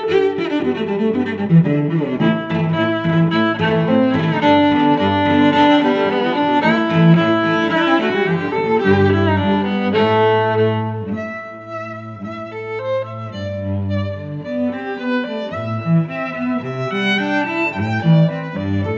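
Background music played on bowed string instruments, with a slow melody over low sustained notes. The music thins to a lighter passage about eleven seconds in.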